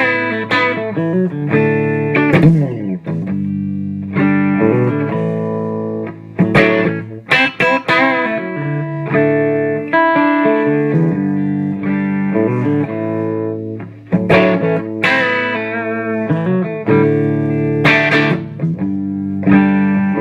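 Electric guitar played through a 1939–40 Gibson EH-185 tube amplifier on its mic channel, with ringing strummed chords and single notes and light overdrive. About two and a half seconds in there is a downward slide.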